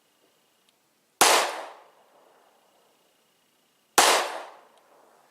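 Two shots from a SCCY CPX-2 9mm pistol, a little under three seconds apart. Each is a sharp crack that dies away within about half a second.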